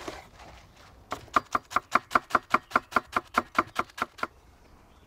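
Kitchen knife chopping on a cutting board in quick, even strokes, about six a second, starting about a second in and stopping near the end.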